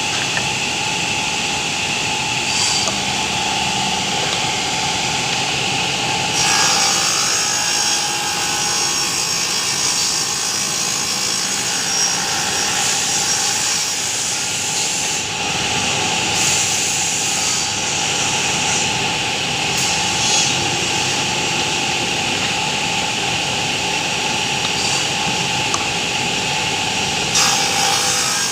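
A machine running steadily with a constant whine, with a few short, louder surges.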